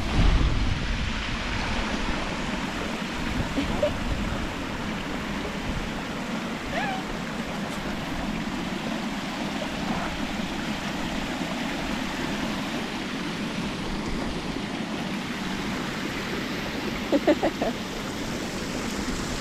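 Steady rush of water spilling over a low stone weir. Near the end, a quick run of three short calls.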